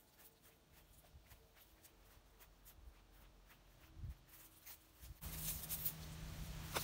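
Faint footsteps and rustling through dry grass and weeds, with a soft thump about four seconds in. A little after that, a louder steady rushing noise with a low hum comes in suddenly.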